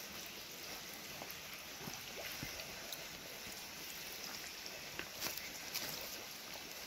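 Faint steady outdoor background hiss, with a few soft clicks about five seconds in.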